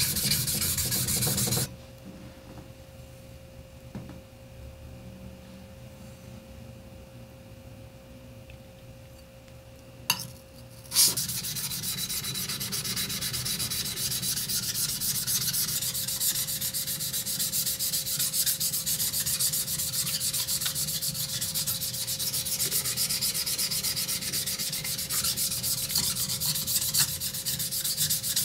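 Carbon-steel blade of a honyaki yanagiba being rubbed back and forth on a slurry-covered green whetstone: a steady gritty scraping as the face of the blade is ground flat. The grinding stops after about two seconds, two sharp knocks come about ten seconds in, and the grinding resumes for the rest.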